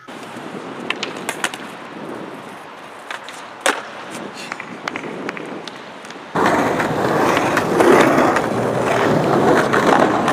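Skateboard wheels rolling on smooth concrete with a steady rush and scattered clicks, and one sharp knock of the board about three and a half seconds in. About six seconds in the sound jumps louder: a skateboard rolling across a paved plaza over city street noise.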